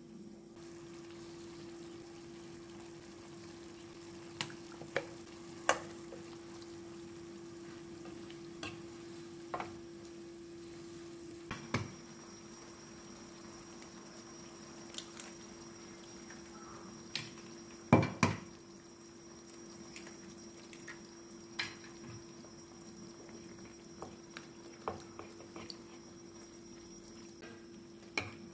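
Broccoli, carrot and tofu cooking in a ceramic-coated frying pan with a faint steady sizzle over a low steady hum, while a spatula knocks and scrapes against the pan every second or two; the two loudest knocks come about two-thirds of the way in.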